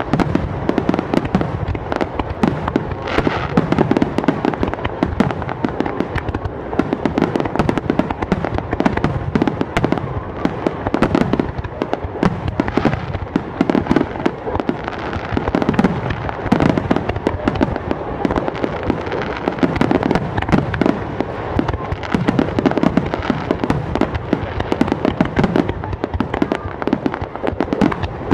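Fireworks display: a dense, unbroken barrage of shell bursts, many bangs following close on one another with no pause.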